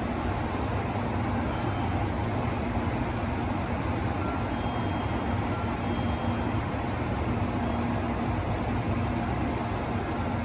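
Steady low hum and rumble on a shinkansen station platform, with a shinkansen train standing at the far track and its equipment running; the level holds even throughout, with no train arriving or passing.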